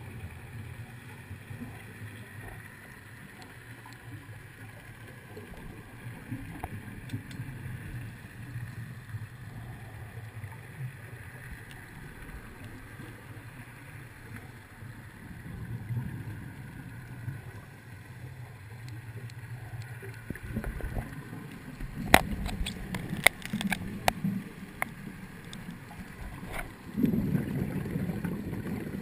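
Muffled underwater sound through a GoPro's waterproof housing: a steady low rumble of scuba divers' exhaled regulator bubbles, swelling to a louder burst of bubbling near the end. About three-quarters of the way in, a few seconds of sharp clicks.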